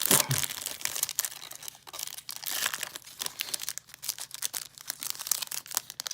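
Foil booster-pack wrapper crinkling and tearing as a trading-card pack is opened, a dense irregular crackle of handled foil.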